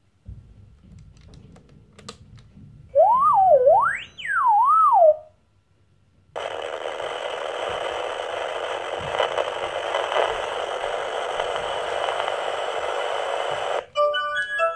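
Hasbro Room Tech Beingz interactive alarm clock toy playing electronic sound effects through its small speaker. A whistle slides up and down in pitch for about two seconds, then a steady hiss runs for about seven seconds and cuts off suddenly, followed by a few short beeping notes near the end.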